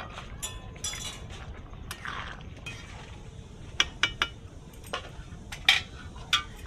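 A metal spoon stirring curry in a metal kadai: soft scraping in the first half, then a run of about six sharp clinks of the spoon against the pan in the second half.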